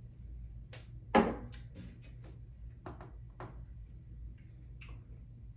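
Glasses or bottles handled on a tabletop: a scattered series of short knocks and taps, the loudest a solid knock about a second in.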